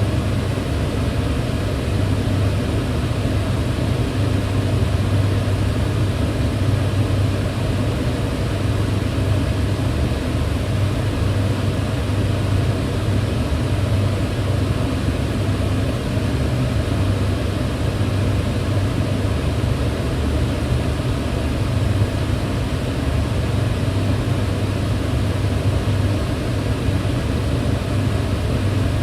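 Kitchen range hood fan running steadily: a constant rushing of air over a low hum.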